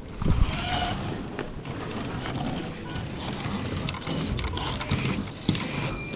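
Small wheeled competition robot's electric gear motors whirring as it drives off across the field, with a loud knock of camera handling about half a second in.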